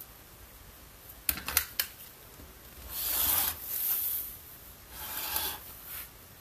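Rotary cutter rasping through quilting cotton on a cutting mat in three strokes about a second apart, after a few sharp taps about a second and a half in.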